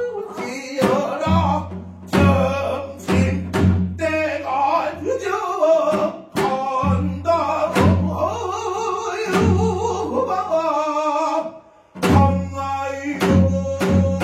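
Korean traditional music: sharp drum strokes on the beat over plucked strings and a wavering singing voice, with a brief drop-out about twelve seconds in.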